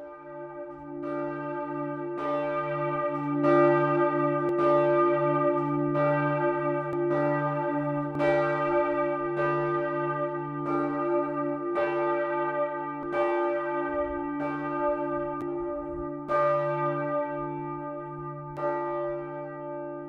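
Church bells ringing, strokes coming about once a second over a steady low hum, swelling at the start and easing off near the end.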